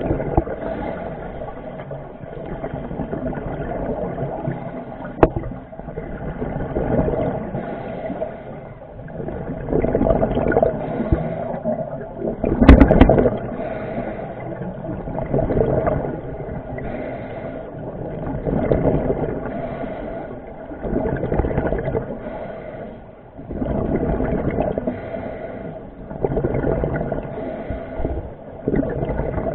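Underwater bubbling and gurgling, muffled through a camera's waterproof housing, swelling and fading every two to three seconds like a scuba diver's exhaled breaths. A sharp click comes about five seconds in, and the loudest rush of bubbles falls about halfway through.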